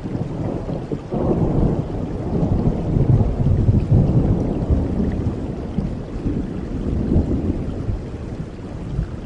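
A long roll of thunder that swells about a second in, peaks a few seconds later and slowly rumbles away, over steady rainfall.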